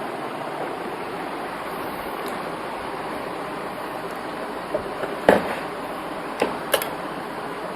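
A steady rushing hiss with a few light, sharp clicks in the second half, the loudest a little past halfway: a small metal tool ticking against the pins of a motherboard's CPU socket as they are straightened.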